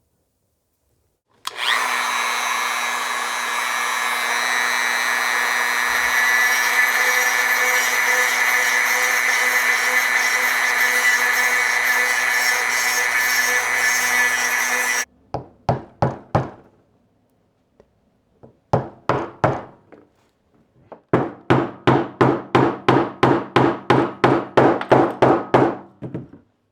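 Dremel rotary tool running steadily on a plastic valve cap for about thirteen seconds, then cutting off. Then a few separate hammer taps, and near the end a quick regular run of about three taps a second.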